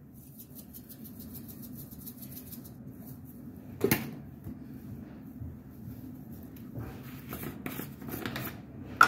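Dry seasoning shaken from a spice shaker bottle over a raw fish in a metal pan: a rapid, fine rattling patter, a sharp knock about four seconds in as a bottle is set down, then more shaking and handling of another bottle, with a click as its cap is snapped open at the very end. A steady low hum runs underneath.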